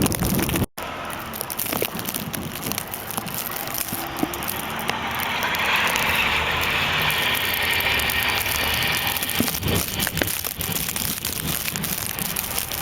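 Wind-driven snow pelting a plastic Ziploc bag wrapped over a camera, making a constant crackling over a steady blizzard hiss that swells in the middle. The sound drops out for a moment less than a second in.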